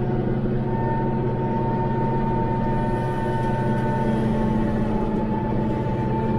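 Branson 5520CH compact tractor's diesel engine running steadily under load while it pulls a rotary cutter through tall grass, heard from inside the closed cab. A steady high whine sits over the engine, setting in about half a second in.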